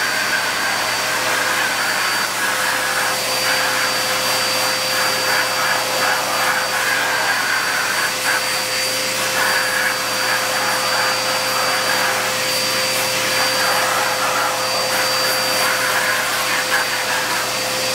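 Vacuum cleaner running steadily with a constant whine over the rush of air through its hose. The suction sound shifts now and then as the brush nozzle is drawn through a dog's coat.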